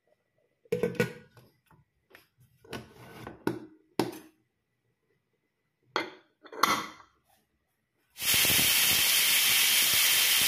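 Stainless-steel Prestige pressure cooker: the lid clanks as it is set on and closed, and the whistle weight clicks onto the vent. About eight seconds in, a loud, steady hiss of steam starts as the cooker whistles under pressure.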